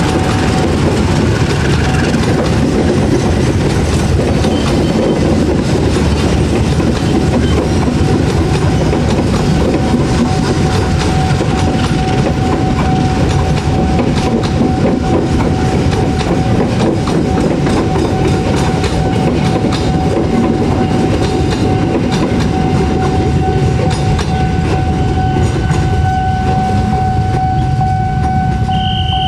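Passenger train coaches rolling past close by: a steady rumble with wheels clacking over rail joints, and a steady high tone running underneath that grows stronger in the second half.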